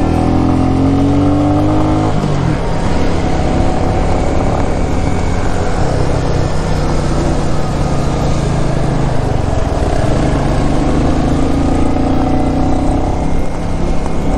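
Motorcycle engine running under way, rising in pitch over the first two seconds as it accelerates, then holding steady.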